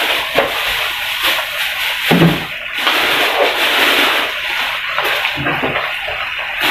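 Hotdog pieces and ground pork in evaporated milk sizzling and bubbling steadily in a non-stick frying pan over a gas flame, with a few louder strokes of the spatula stirring.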